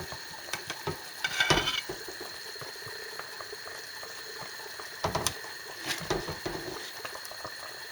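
Chicken broth bubbling in a pan, with a few clinks and scrapes of a spoon against the pan as the froth is skimmed off.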